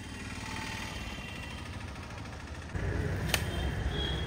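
Low steady outdoor rumble that grows louder about two and a half seconds in, with one sharp firecracker crack a little after.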